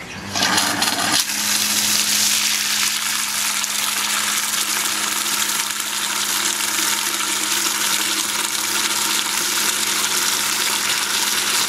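Flood coolant stream from a Loc-Line nozzle pouring and splashing into a plastic bucket. The flow starts about a second in and then runs steadily, over a steady low hum from the coolant pump.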